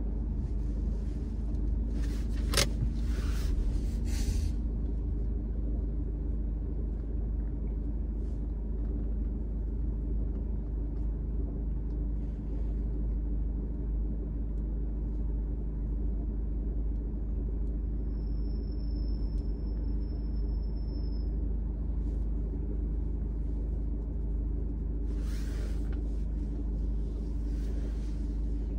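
Car engine idling, heard from inside the cabin while the car stands still: a steady low rumble. A rushing hiss rises over it for the first few seconds and again near the end, and a thin high tone sounds for about three seconds past the middle.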